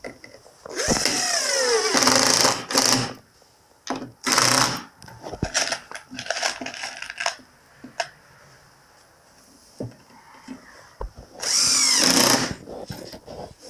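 DeWalt cordless drill-driver run in three short bursts against a rusted sheet-metal panel, with a few light knocks and scrapes of metal between them. The first burst is the longest and its motor whine falls in pitch as the trigger is let off.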